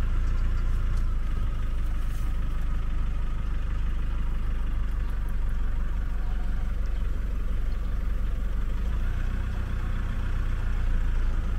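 Vehicle engine idling, a steady low rumble.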